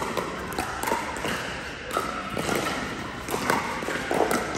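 Pickleball paddles hitting the plastic ball and the ball bouncing on the court: a string of short, sharp pops at irregular intervals, echoing in a large indoor hall.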